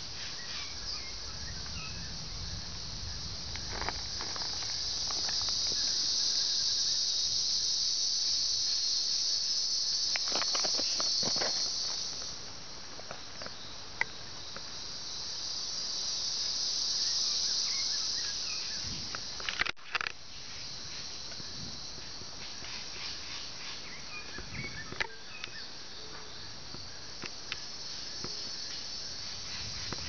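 A steady high-pitched chorus of rainforest insects, swelling louder twice and easing off in between, with a few scattered short chirps and clicks.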